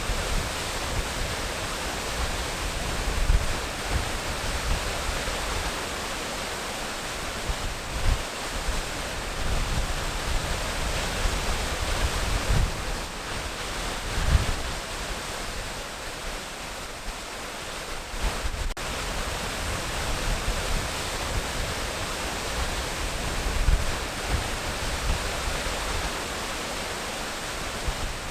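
Waterfall: a steady rush of falling water, with irregular low rumbles swelling now and then.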